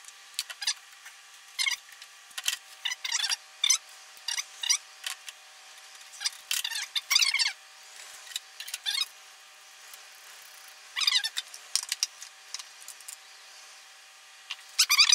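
Irregular clinks, clicks and short scrapes of hand tools and plastic and metal parts as the carburetor and air-cleaner housing are refitted on a Briggs & Stratton single-cylinder engine, with a few brief squeaks among them.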